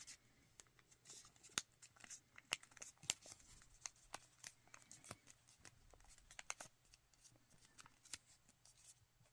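Origami paper being folded and creased by hand: faint, scattered crinkles and soft ticks as the paper is flattened along its creases.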